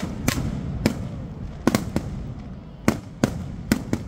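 Fireworks going off: a rapid, irregular run of sharp bangs, about nine in four seconds, some in quick pairs.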